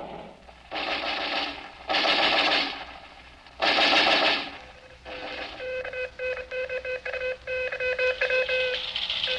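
Sound effects from a 1940s radio broadcast recording: three short bursts of machine-gun fire about a second apart, then a rapid string of short beeps, about four a second, lasting around three seconds.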